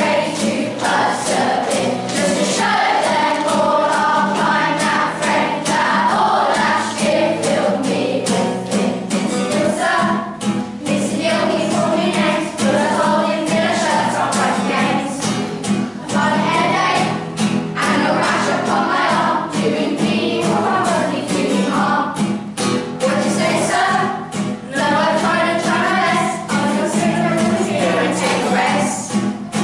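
A group of primary-school children singing a song together as a choir, over steady low accompaniment.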